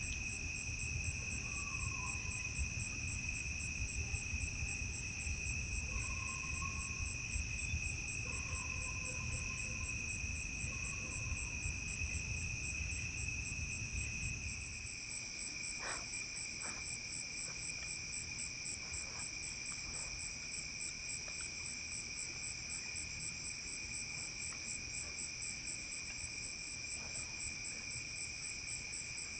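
A steady chorus of night insects such as crickets, with several continuous high trills and one very fast-pulsed chirping. A low rumble sits underneath at first and stops about halfway through.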